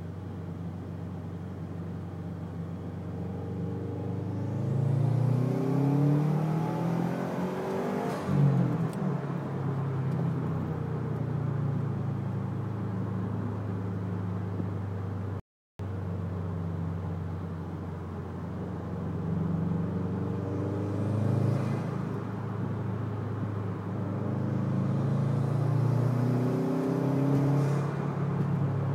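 A 2011 Subaru WRX's turbocharged 2.5-litre flat-four, with a COBB intake and Stage 1 tune, heard from inside the cabin under hard acceleration. The engine note rises with revs and drops at each gear change, and this happens several times, with a brief rush of air at the shifts from the bypass valve. There is a short dropout near the middle.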